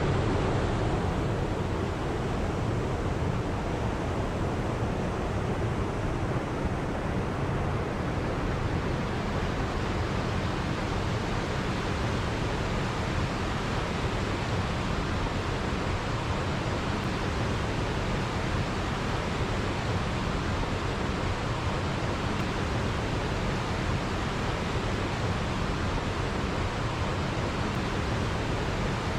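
Waterfall: the steady rushing roar of falling water, even and unbroken.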